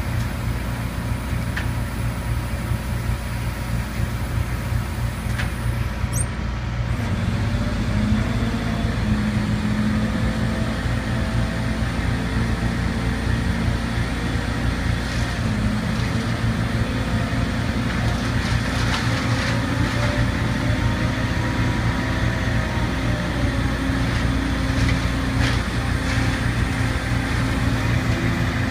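A crane's engine running steadily, its note stepping up slightly and getting a little louder about seven seconds in.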